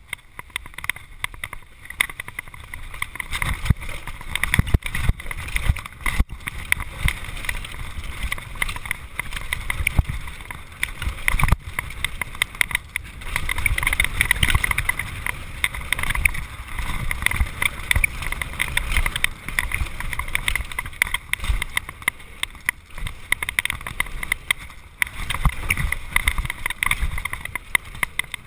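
Mountain bike descending a rough dirt trail at speed, recorded on the bike: wind rushing over the microphone, with continual rattles and knocks from the bike and tyres over bumpy ground.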